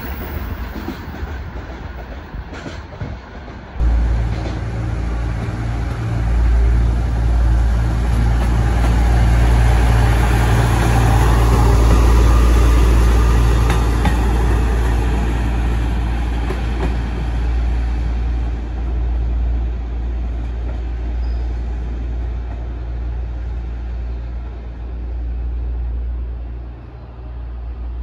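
A freight train rolling through for the first few seconds, then a passenger railcar passing close by: its running noise, with a steady low hum, swells to a peak midway and slowly fades.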